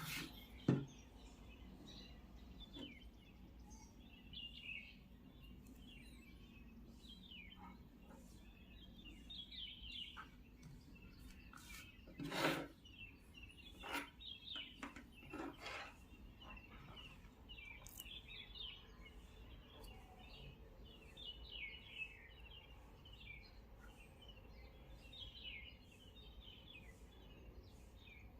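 Small birds chirping over and over in quick short calls, with a few sharp knocks now and then.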